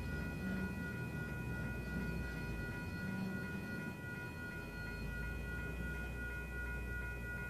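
Freight train of autorack cars rolling past with a steady, high-pitched ringing squeal from the wheels over a low rumble.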